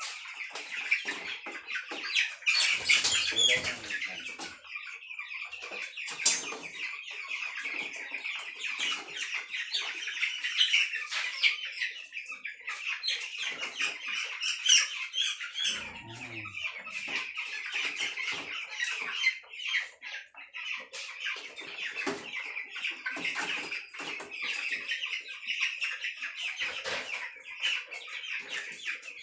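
A flock of broiler chickens cheeping continuously in many overlapping high-pitched calls. Bursts of wing flapping and scuffling come as birds are handled in a plastic crate, loudest a few seconds in.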